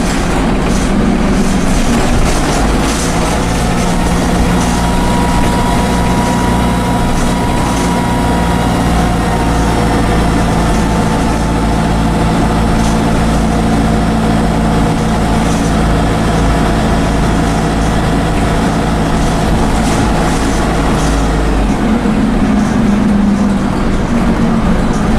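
Dennis Dart single-deck bus's Cummins diesel engine running, with a turbocharger whine over it, heard from on board amid scattered rattles. About 22 seconds in, the engine note changes and a higher tone rises.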